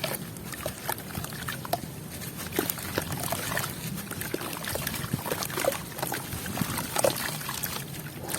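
Sand and charcoal blocks crumbling: scattered small crackles and trickling grains, over a steady low rumble of wind on the microphone.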